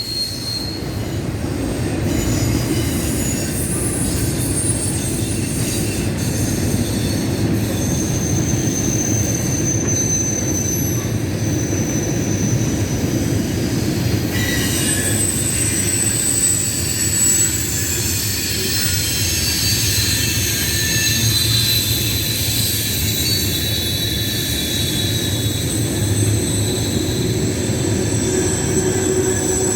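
Train rolling past with a steady low rumble of wheels on rail and thin, wavering high-pitched wheel squeal.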